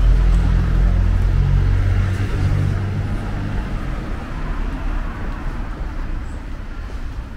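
A road vehicle passing close by on a city street, its low engine rumble loudest at the start and fading over the next few seconds.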